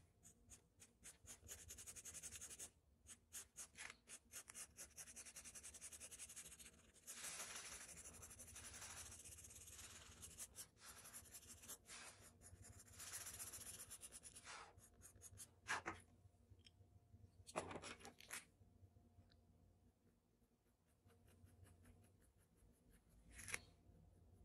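Faint scratching of a drawing pencil on paper. There are quick short strokes at first, longer shading strokes from about seven seconds in, and a few sharper single strokes near the end.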